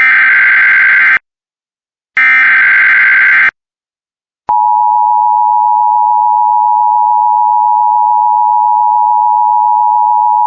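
Emergency Alert System broadcast: two of the SAME digital header bursts, each about a second long and a second apart, then, about four and a half seconds in, the steady two-tone EAS attention signal starts and holds. The header bursts carry the coded alert, and the attention tone announces the spoken emergency message that follows.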